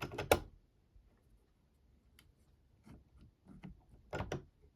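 Sharp clicks and taps of a manipulation tool and its pins being worked in the keyhole of an SMP 7-lever safe lock. They come in clusters: a loud group at the start, a few scattered ticks, another group about three seconds in, and a strong group near the end.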